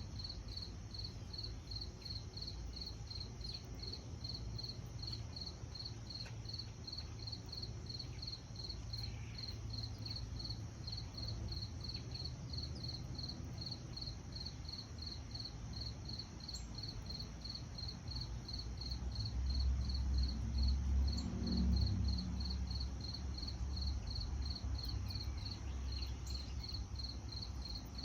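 A cricket chirping steadily outdoors, about two evenly spaced high chirps a second. A low rumble swells for a few seconds about two-thirds of the way through.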